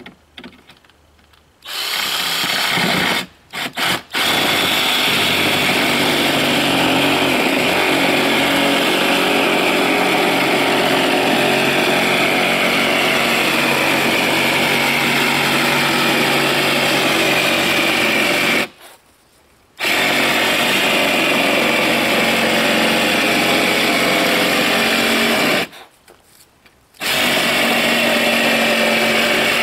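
Handheld cordless power tool working on an OSB sheet, its motor running with a steady high whine that wavers slightly in pitch. It starts about two seconds in, gives a couple of short blips, then runs in long stretches, stopping briefly twice.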